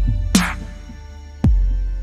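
Background music: held tones with a deep bass hit about a second and a half in and a sharp, bright percussive strike shortly after the start.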